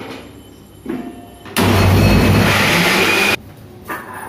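Electric kitchen mixer grinder running in one short burst of under two seconds, grinding onion with ginger and garlic into a paste. It starts and cuts off abruptly.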